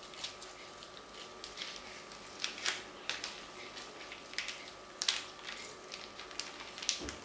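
Plastic wrapper of a tube of minced beef crinkling and crackling in irregular bursts as the meat is squeezed out of it by hand.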